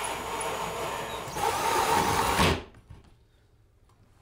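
Cordless drill driving an electrical-box hole saw through a drywall ceiling. It gets louder about a second and a half in and then stops abruptly, followed by a few faint clicks.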